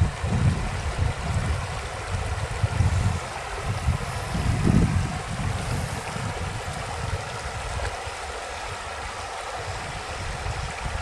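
Creek water running steadily. Low rumbling gusts, likely wind on the microphone, come in the first half and return near the end.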